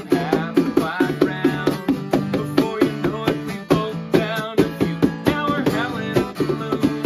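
Acoustic guitar strummed in a steady rhythm, with a man singing over it at times and hands slapping a cardboard box as a drum.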